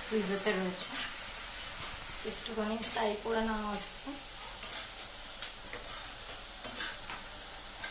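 Food sizzling in a wok while a spatula stirs it, with sharp taps and scrapes of the spatula against the pan about once a second.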